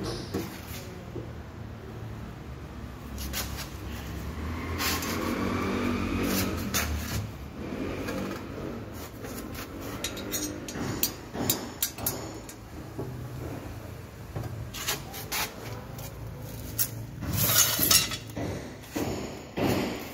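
Scattered knocks, taps and clinks of hands working on a metal door rail and glass-door fittings, with a brief rising squeak about five seconds in and a louder cluster of knocks near the end.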